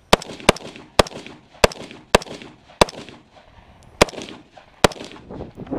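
A string of eight gunshots in quick succession, most about half a second apart, with a gap of over a second before the last two. The rounds are fired during a timed practical shooting stage that begins at the shot-timer beep.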